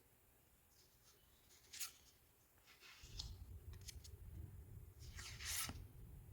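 Faint rustling and scraping of Pokémon trading cards and a booster-pack wrapper being handled: a brief scrape about two seconds in, then short rustles, the longest and loudest near the end. A low hum comes in halfway through.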